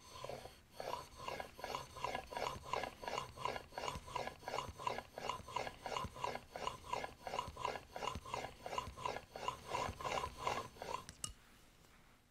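Smoothing plane blade held in a honing guide, stroked back and forth on a water stone: a steady rhythmic rasp, about two strokes a second, stopping about eleven seconds in. The strokes hone the 25-degree bevel to raise a burr at the edge.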